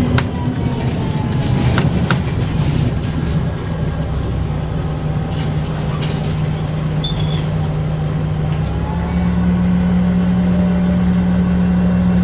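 Bus with a Voith DIWA automatic gearbox running, a steady low engine drone that rises in pitch and gets slightly louder about nine seconds in. A couple of faint knocks sound near the start.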